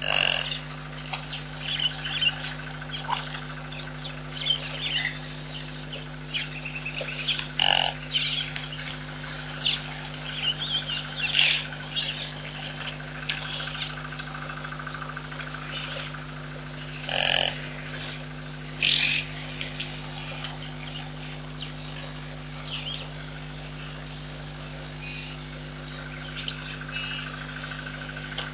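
Birds chirping and calling in the bush, with a few louder short calls standing out, over a steady low hum.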